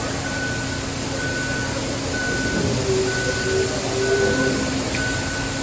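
A vehicle's reversing alarm beeping about once a second over a diesel engine running steadily.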